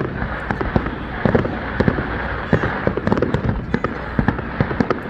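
Fireworks display going off in a rapid, irregular barrage of bangs and crackles during its grand finale.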